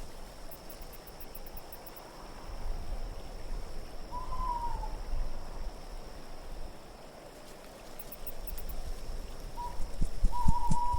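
An owl hooting over a steady wind background: one hoot about four seconds in, slightly falling in pitch, then two more near the end. Low dull thumps come in near the end.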